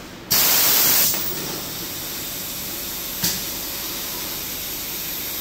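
Pneumatic press of a high-frequency PVC blister sealing machine: a loud blast of compressed air venting for under a second as the press head moves, then a steadier, quieter hiss, a single sharp click a little past the middle, and a second loud air blast right at the end as the head works again.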